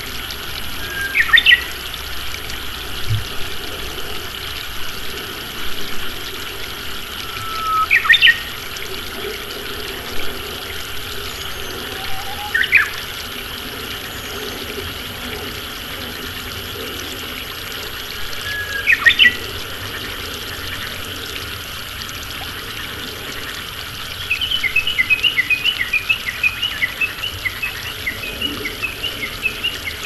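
Japanese bush warbler (uguisu) singing over steadily trickling rice-paddy water: four loud song phrases, some opening with a held whistled note before a quick sweeping flourish. Near the end a fast series of short repeated calls begins.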